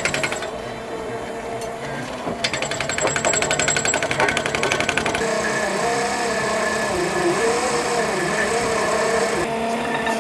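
TOHO K1-B double-tube oil-hydraulic drilling machine at work on a drainage hole. A run of rapid hammering comes from its rotary-percussion drill head, then a steady running sound with a whine that wavers in pitch.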